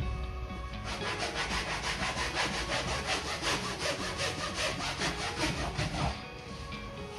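Sponge scrubbed rapidly back and forth over fabric couch upholstery, a fast scratchy rubbing of about five strokes a second that starts about a second in and stops about six seconds in.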